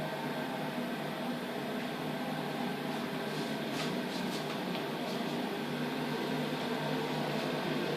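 Steady mechanical hum, with a few faint ticks about four seconds in.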